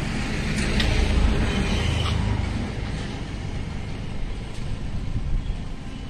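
Low rumble of road traffic, swelling about a second in and easing off, with a few faint clicks.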